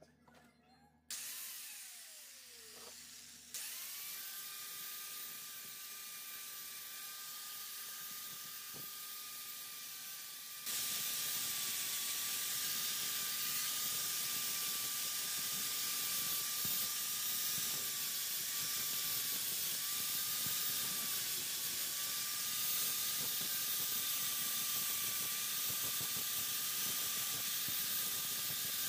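Electric angle grinder with a sanding disc running at speed with a steady high whine. About ten seconds in, a louder, steady hissing grind joins as the disc sands a piece of wood.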